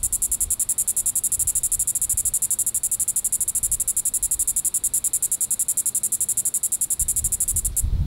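Diceroprocta vitripennis cicada calling: a steady, high-pitched buzz made of rapid, even pulses. It breaks off briefly just before the end.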